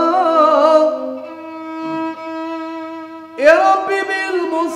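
Moroccan Andalusian-style devotional song: a male voice ends a wavering, ornamented sung line about a second in. A violin then holds a steady note, and a louder bowed phrase begins with an upward slide about three and a half seconds in.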